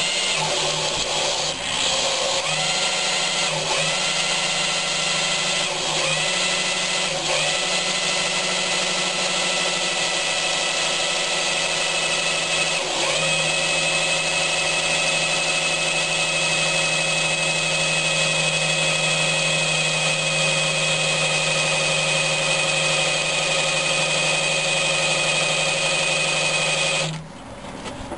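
Electric drill spinning a modified distributor shaft to drive an engine's oil pump, priming a rebuilt engine with oil before its first start. The drill's whine steps up and down in pitch several times in the first half, then runs steady until it stops about a second before the end.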